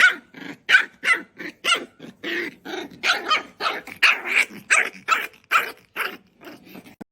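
A dog barking rapidly and repeatedly, about three barks a second, stopping just before the end.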